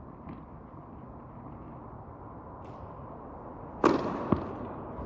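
A tennis serve: a ball bounce near the start, then the racket strikes the ball hard about four seconds in with a loud crack that rings on in the reverberant hall, and a sharp knock half a second later as the ball lands.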